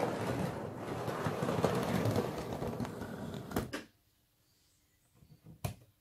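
Model railway diesel locomotive running on the track, its motor and wheels making a continuous mechanical noise that stops suddenly about four seconds in. A few small clicks follow near the end.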